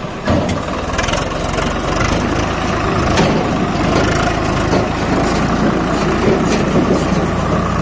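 Swaraj 744 FE tractor's three-cylinder diesel engine running steadily.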